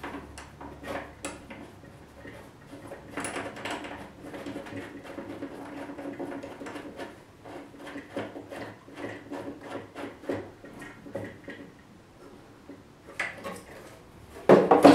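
Small clicks and taps of brass fittings and washers being handled and screwed onto the plastic threaded inlet of a toilet cistern fill valve, with a louder clunk near the end.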